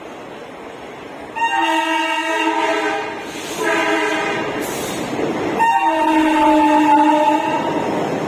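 Train's air horn sounding three times, long, short and long, as a chord of several steady tones, over the rumble of a train running through the station.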